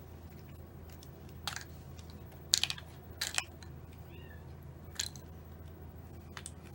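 Hands kneading and pulling homemade slime in a plastic bowl: a few short, sharp sticky squelches and clicks, the loudest between about two and a half and three and a half seconds in, over a faint steady low hum.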